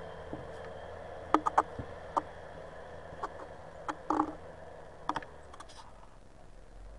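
A dozen or so sharp clicks and knocks in irregular groups, close by, over a steady low engine drone from the Everun ER1500F mini loader working in the distance.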